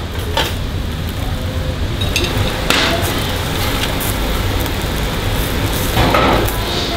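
Kitchen clatter at a charcoal kebab grill: a steady low hum with a few sharp clinks and knocks, the loudest about six seconds in.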